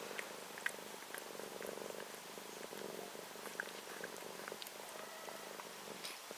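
Domestic cat purring: a steady low rumble that swells and eases every second or so, with a few faint clicks.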